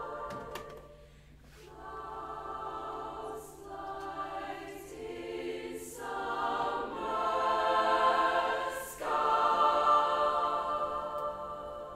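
Girls' choir in treble voices singing sustained chords in phrases broken by short pauses, with crisp 's' consonants at phrase ends. It swells to its loudest past the middle and falls away near the end.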